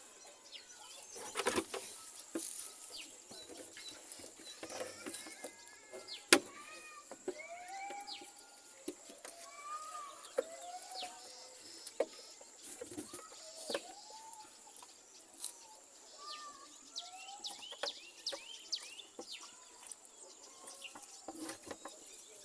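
Pigs chewing and crunching watermelon, with irregular wet clicks and snaps and one sharp crack about six seconds in. Many short calls rise and fall in pitch throughout, from animals around the pen.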